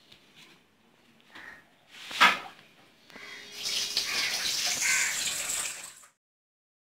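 One sharp knock about two seconds in, then a steady rushing, water-like hiss for a couple of seconds that cuts off suddenly.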